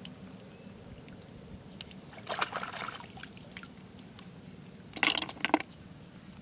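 Hands splashing and sloshing in shallow river water while feeling for snails at the bank: two short bursts of splashing, the first about two seconds in and a louder one about five seconds in.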